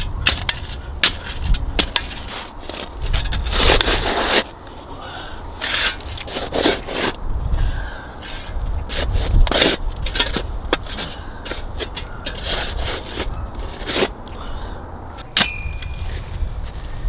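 Irregular knocks, clicks and scraping, some sharp and loud, over a low rumble, with a brief high tone near the end.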